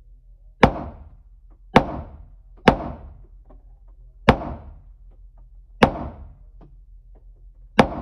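Six gunshots fired at an uneven pace in an indoor shooting range, each sharp crack followed by a short echo off the range walls.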